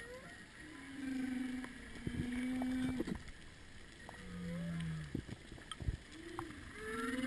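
Humpback whale song heard underwater: a sequence of drawn-out moans, short rising calls and a lower falling moan, following one another every second or so, with a few sharp clicks in between.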